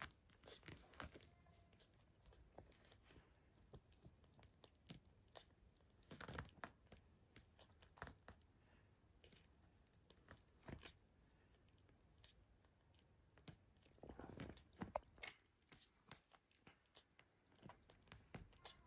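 Newborn American Bully puppy suckling milk from a baby bottle: faint, irregular clicks and smacks of sucking, with louder clusters about six seconds in and again around fourteen to fifteen seconds.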